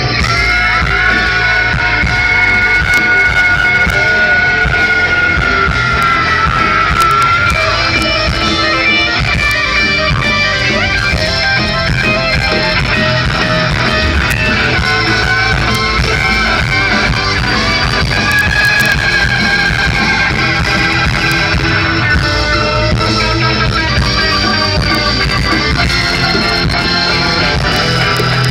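Live band playing, with guitar to the fore and long held notes in the first several seconds.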